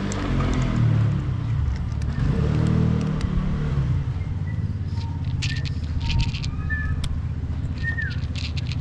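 A motor vehicle's engine rumbles past, loudest in the first three seconds and then easing into a low background hum. From about five seconds in, a cat crunches dry kibble in quick crisp crackles, with a few short high chirps among them.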